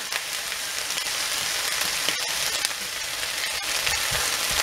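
Diced vegetables sautéing in a frying pan, sizzling with a steady hiss and a few faint crackles.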